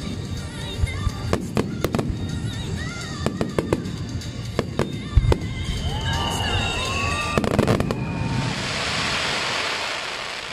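Fireworks display: aerial shells bursting in rapid, uneven bangs. About six seconds in a falling whistle runs for a second or so, and near the end the bangs give way to a dense hissing crackle that fades.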